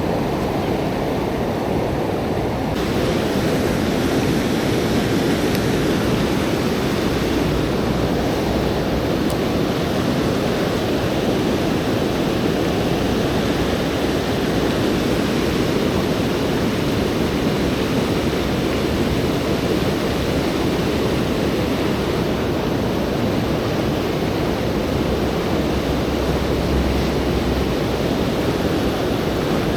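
Steady rush of a fast-flowing river running high after rain. About three seconds in the sound turns brighter and hissier.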